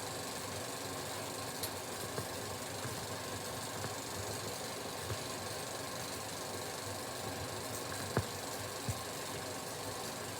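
Steady hiss of an old 16mm film soundtrack with no programme sound, broken by a few pops, the loudest two close together near the end.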